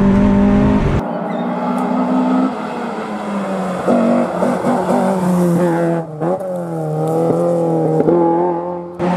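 Opel Kadett GTE Group 2 rally car's four-cylinder engine under hard acceleration. It is heard from inside the car for about a second, then from the roadside as the car approaches and takes a bend, the revs rising and dropping several times.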